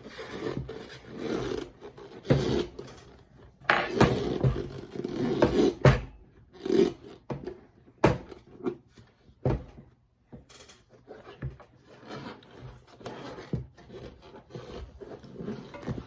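Rubber inner tube and fat bike tire being pulled and worked by hand: irregular rubbing and scraping with scattered knocks. It is busiest about four to six seconds in and quieter in the second half.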